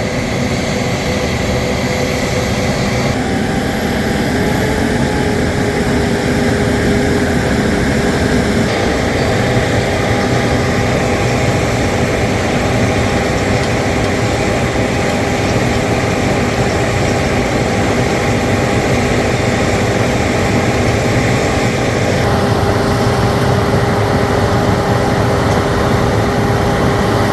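Truck-mounted water-well drilling rig running hard while drilling: a loud, steady engine-and-machinery drone with a constant whine, shifting in tone a few times.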